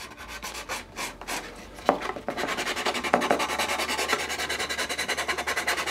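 Sanding stick rubbed along the overlapping edge of a sheet-styrene wall, working the glued seam down flush. A few scattered strokes at first, then from about two seconds in a quick, even run of back-and-forth strokes, several a second.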